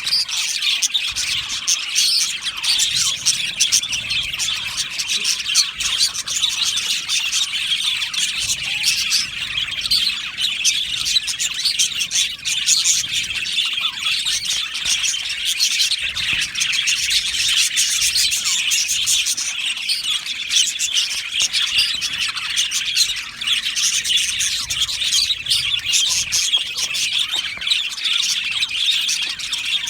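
A flock of budgerigars chattering in an aviary: many birds chirping, warbling and squawking at once in a dense, continuous, high-pitched chatter.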